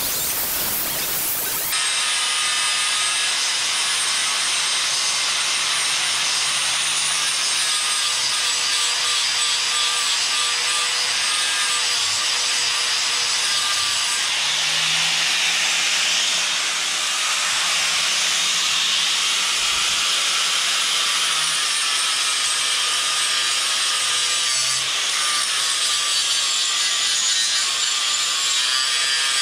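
Electric angle grinder cutting through the steel tube frame of a 1983 Yamaha XJ900 motorcycle: a steady high whine over a harsh grinding hiss, the whine's pitch wavering a little as the disc bites.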